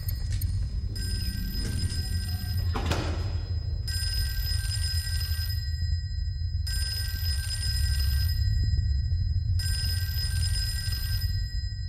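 Old-style desk telephone bell ringing again and again, each ring a second or two long with short gaps between, over a steady low rumble.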